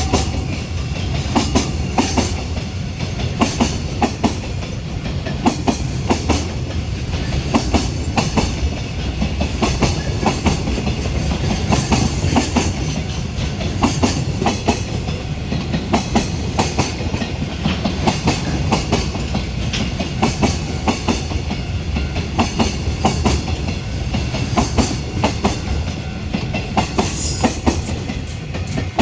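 Container freight train rolling past, a steady rumble with its wagon wheels clacking in quick runs over the rail joints.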